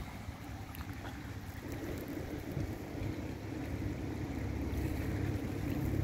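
Wind buffeting the microphone: a low, noisy rumble that grows stronger about two seconds in.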